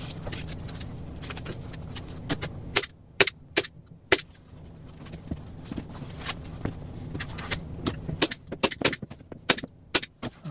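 A hand-held staple gun fires a series of sharp snapping shots, driving staples through a vinyl seat cover into the plywood seat base as the cover is tacked down. There is a cluster of shots a couple of seconds in and a quicker run of shots near the end, over a low steady hum.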